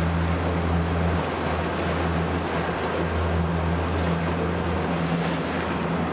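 Boat's outboard motor running at a steady cruise, a constant low hum, with water rushing past the hull.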